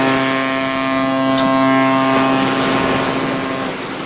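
A ship's steady droning tone with many overtones, over wind rushing on the microphone; the higher overtones drop away about halfway through and the tone fades out near the end.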